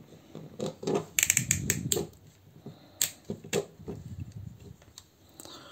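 Plastic joints and parts of a small transformable robot action figure clicking and rattling as it is handled, a quick string of sharp clicks about a second in and a few more around three seconds, over soft rubbing of hands on the toy.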